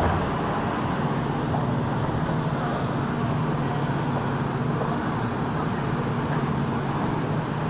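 Rubber-tyred Montreal metro train heard from inside the car as it comes to a stop at a station: a steady rumble with a low hum under it.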